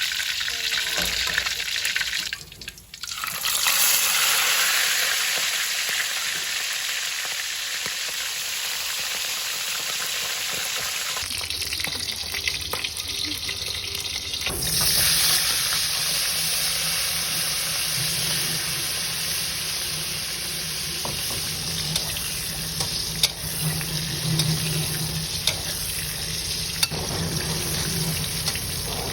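Fish frying in hot oil in a pan: a steady sizzle with small scattered pops.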